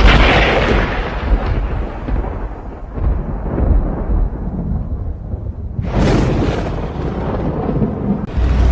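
Thunder: a loud crack that rolls into a long rumble, then a second sudden crack about six seconds in, rumbling on.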